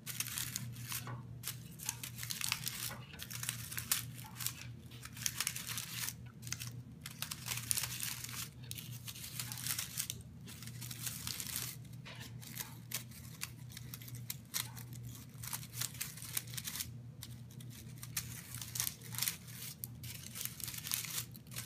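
Paper cupcake liners being scrunched and crinkled by hand, in irregular rustling bursts with short pauses, over a steady low hum.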